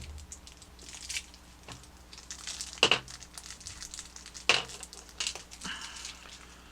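Plastic packaging crinkling and rustling as small toy parts are unwrapped, with two sharp clicks near the middle.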